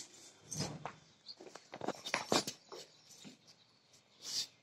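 Dog playing with a rope ring toy on a concrete floor: irregular light taps, clicks and scrapes of its claws and the toy on the concrete.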